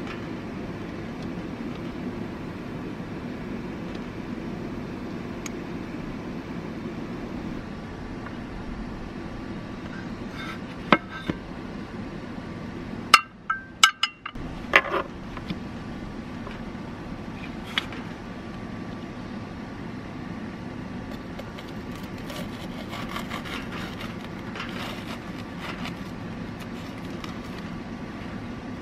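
Under a steady low hum, a few sharp clacks and knocks come about halfway through as the metal hot-sandwich maker and wooden board are handled. From about three-quarters of the way in, a knife crunches through the crisp toasted sandwich.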